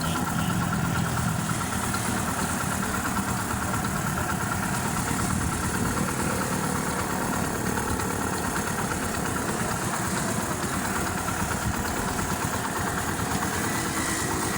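Freshly rebuilt motorcycle engine, with new piston, rings, valves and timing chain, running at a steady raised idle. It does not yet settle to a slow idle because it has not been run in.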